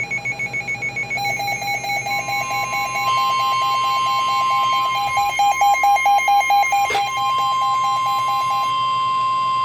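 Emergency alert tones from several NOAA weather radio receivers: rapid pulsing beeps that stop near the end, joined about two seconds in by a long, steady 1050 Hz warning alarm tone, the signal that a warning message (here a severe thunderstorm warning) is about to be broadcast.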